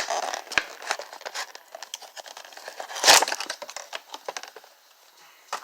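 Packaging of a boxed action figure being handled: irregular crinkling and crackling, with a louder crackle and a bump about three seconds in, dying down near the end.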